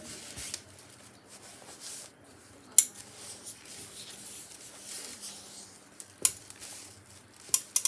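Steam iron gliding over thin lining fabric while hands smooth and shift the pieces, a soft rustle. A few sharp clacks break in: about three seconds in, about six seconds in, and twice in quick succession near the end.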